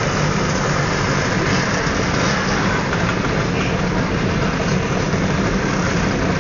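Several Lambretta and Vespa scooter engines idling and running together, steady.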